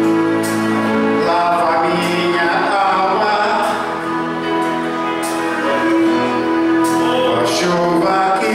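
A man singing a gospel hymn into a microphone over instrumental accompaniment, with long held notes and a wavering note about two to three seconds in.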